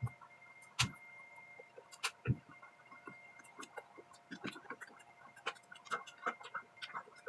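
Eating sounds: a spoon clicking and scraping against a plate while fried rice is eaten, with soft chewing, in short irregular ticks, the loudest few in the first two and a half seconds.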